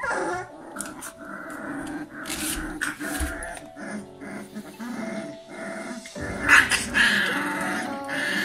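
Young Cane Corso puppies play-growling as they wrestle and mouth each other, with the loudest cry about six and a half seconds in. Background music plays underneath.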